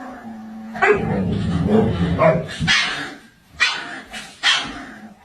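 A dog barking, with several short, sharp barks in the second half.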